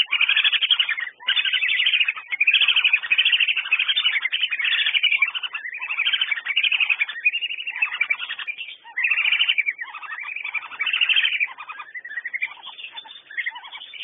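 Whistling ducks (Dendrocygna) calling: rapid, repeated whistled calls packed close together, with only brief breaks.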